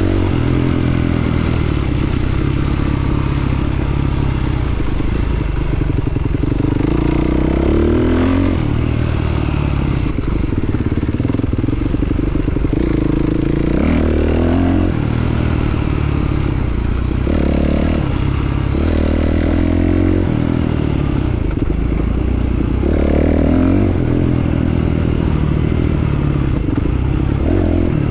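Enduro motorcycle engine under way off-road, its pitch climbing and dropping over and over as the throttle opens and closes.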